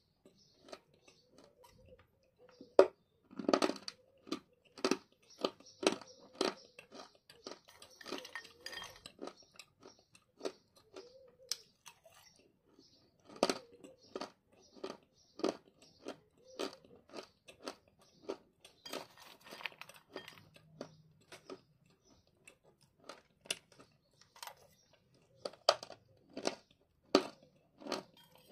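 Close-up chewing of dry edible clay chunks: sharp, brittle crunches one or two a second, with two short lulls between mouthfuls.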